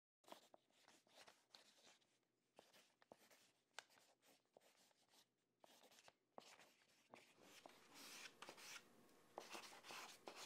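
Faint scratching of a drawing tool on paper: short sketching strokes, coming faster and louder over the last few seconds.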